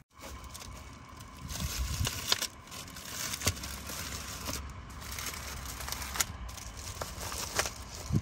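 Plastic bags crinkling and rustling as bagged trays of rice rolls are handled and set down in a car boot, with a few light knocks.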